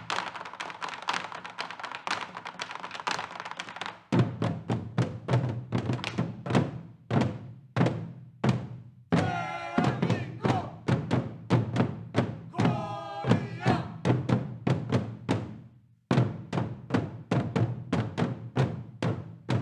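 Korean traditional percussion ensemble playing: drums struck in a fast, driving rhythm, with a dense ringing wash over the first four seconds and two short pitched sliding calls in the middle.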